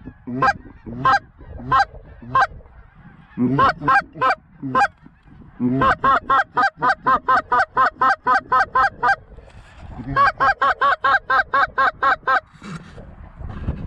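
Goose call blown in a calling sequence: a few spaced honks, then two long runs of quick, even clucks, about four a second.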